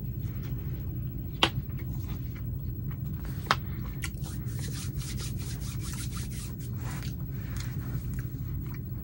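Eating sounds: a metal fork clicks sharply twice against a bowl, then a few seconds of quick light scraping, over a steady low hum.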